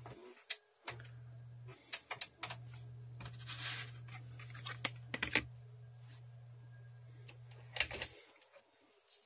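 Scattered clicks and knocks from hands handling computer equipment, several in quick clusters, with a brief rustle, over a steady low electrical hum that cuts out twice.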